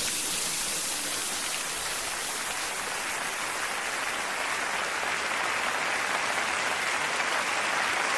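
Steady heavy rain falling, an even hiss that grows fuller from about halfway through.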